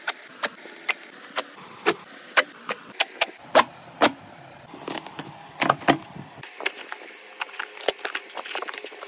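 A knife blade slitting the packing tape and scraping the cardboard of a parcel box: a string of sharp scratches and knocks, about two a second at first, a louder pair about six seconds in, then quicker, fainter ones.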